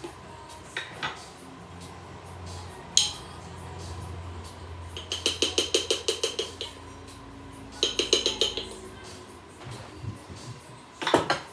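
Baking powder canister being handled: a sharp click about three seconds in, then two bursts of quick rattling clicks, about ten a second, around five and eight seconds in.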